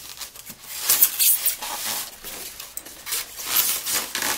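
A plastic toy RC car being worked out of its styrofoam packaging insert by hand: irregular scraping and rubbing of plastic against foam, loudest about a second in.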